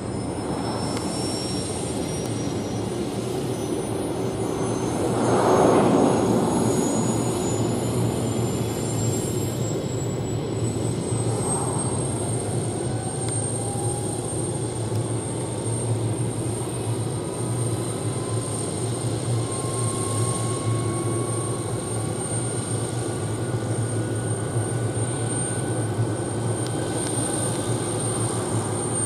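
Hughes 500E helicopter's Allison 250 turboshaft spooling up on the ground with the rotor turning. A high whine climbs in pitch for about twelve seconds and then holds steady, while a lower whine keeps rising over a steady low hum. A brief louder whoosh swells up about five seconds in.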